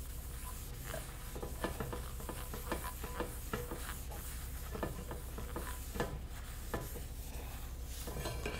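A cloth towel rubbing and wiping olive oil around the inside of a hot Stargazer cast iron skillet, with scattered light scrapes and taps of the pan, faint throughout.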